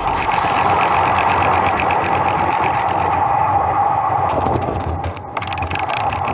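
Street traffic heard from a moving bicycle: engines of nearby jeepneys, motorcycles and trucks over a steady rush of road and wind noise, with a brief drop in loudness about five seconds in.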